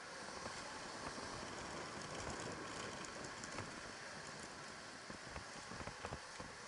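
Electric dirt bike ridden over a packed-dirt track: a steady rushing hiss of tyre and air noise, with scattered knocks and rattles from the bike over bumps, most of them in the second half.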